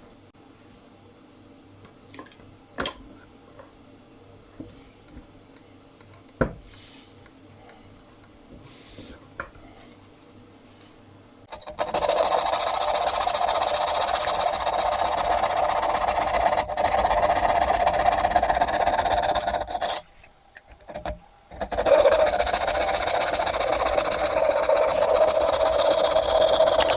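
A few light clicks and knocks of wood being handled, then an electric woodworking power tool starts and runs steadily for about eight seconds, stops briefly, and starts again.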